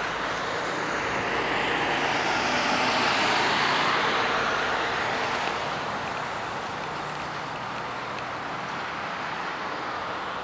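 Jet airliner passing low overhead on its landing approach: a steady rush of engine noise that swells to its loudest about three to four seconds in, then slowly fades.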